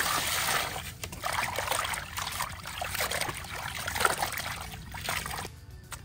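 Water poured into an aluminium basin over raw pork intestines, then hands squeezing and sloshing the intestines in the water with uneven splashing, stopping about five and a half seconds in.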